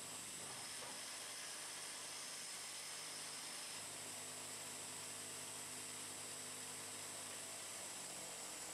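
A 1988 German cam-shaft-controlled automatic lathe running steadily as it turns wooden beads from a rod: an even motor hum under a steady hiss of cutting.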